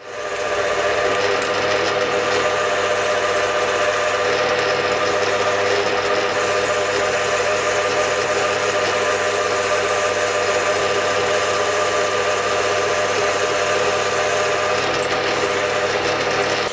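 Metal lathe spinning up about a second in, then running steadily with a gear whine while a carbide insert tool turns a 1020 steel workpiece held in a collet chuck.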